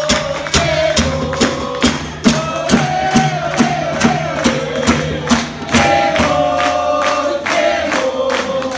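Live Argentine folk music: acoustic guitar, button accordion and bombo drums playing with a steady beat, voices singing and the crowd clapping along.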